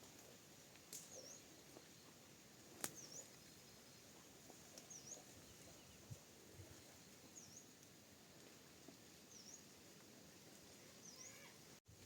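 Quiet outdoor ambience with a bird's faint, short high chirp repeating every second or two, and two sharp clicks in the first three seconds.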